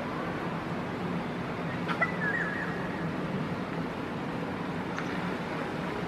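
Steady hiss of light drizzle, with a click and then a short wavering bird call about two seconds in.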